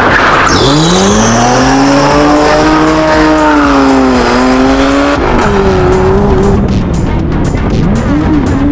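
A cheap rally car's engine revving hard under acceleration, its pitch climbing steeply and held high, then dropping and changing about five seconds in as the driver shifts or lifts. Background music with a steady beat runs under it.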